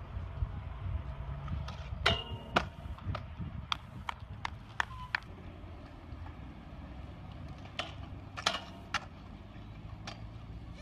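Stunt scooter wheels rolling on skatepark concrete with a steady low rumble, broken by a series of sharp clacks as the scooter hits the ground, the loudest two about two seconds in.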